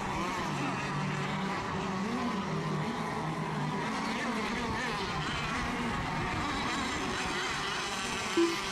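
Several radio-controlled racing boats running together, their engines whining at wavering, overlapping pitches as they lap the course. A short, loud beep sounds near the end.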